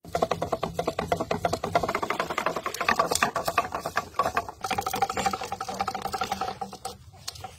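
Homemade fishing-line spool spinning on its axle between two posts, giving a fast, even clicking rattle of about ten clicks a second with a ringing tone through it, which thins out near the end.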